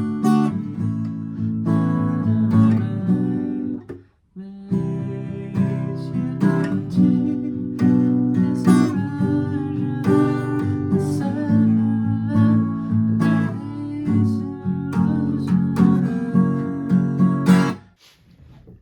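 Acoustic guitar strumming chords in a steady rhythm, breaking off for a moment about four seconds in and stopping near the end.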